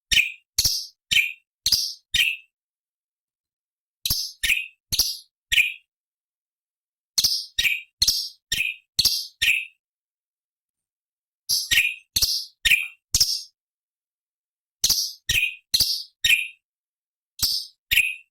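Cucak cungkok leafbird calling in repeated phrases. Each phrase is a run of three to six short, sharp notes that slide down in pitch, about two notes a second, with pauses of one to two seconds between phrases.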